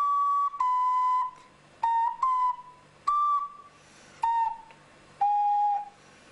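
A small handheld wind instrument playing a slow, halting melody of single pure, flute-like notes with short pauses between them, mostly stepping downward in pitch. It is a beginner picking out a difficult tune on an instrument only about a week old.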